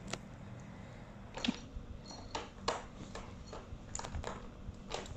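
A cat batting at a three-tier plastic ball-track toy, giving a run of about eight irregular sharp clicks and taps of paw and balls on the plastic.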